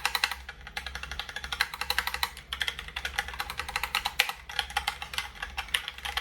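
Logitech Pop Keys mechanical keyboard with round keycaps and tactile switches being typed on, a quick irregular run of sharp clicky key presses, several a second.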